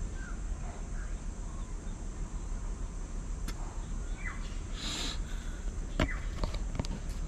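Birds calling with a few short chirps and one rising call over a steady low background rumble. There are a few sharp clicks near the end.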